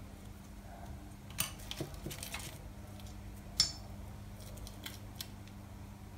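Small sharp clicks and taps of a metal cookie cutter being pressed through rolled dough against a stone countertop, with a brief scratchy rustle; the sharpest click comes about three and a half seconds in. A faint steady hum runs underneath.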